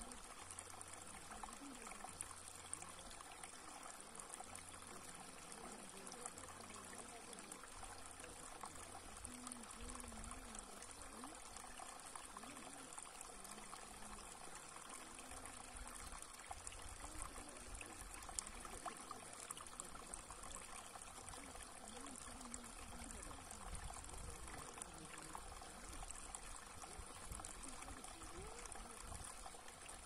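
Shallow water trickling steadily down a flat stone channel and spilling into a still pool.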